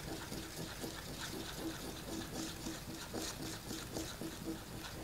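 Faint, soft scraping and squishing strokes, a few a second, as a small mixing tool stirs two-part spot putty on a piece of notebook cover.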